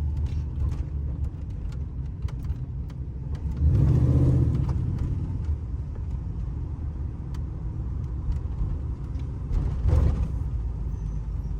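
5.3-litre LS V8 in a 1985 Monte Carlo SS running with a steady low rumble, heard from inside the car. It swells louder twice, about four and ten seconds in.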